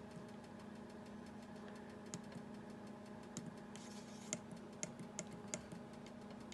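A steady low machine hum, with a few short clicks of the deck oven's control-panel buttons being pressed, scattered through the second half.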